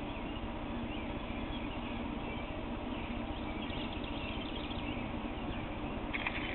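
Steady outdoor background noise with faint, scattered bird chirps, and a brief brighter chirp near the end.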